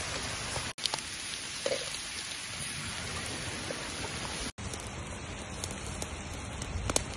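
Pork leg sizzling in a thick sauce in a metal wok over a wood fire: a steady, even sizzle with a few small crackles. It cuts out for an instant twice.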